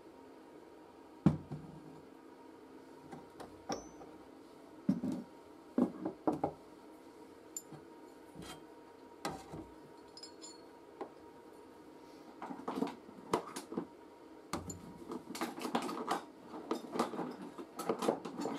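Machined steel parts knocking and clinking against a steel plate as they are set down and moved by hand: one sharp knock about a second in, scattered clinks after it, and a busier run of clinks near the end.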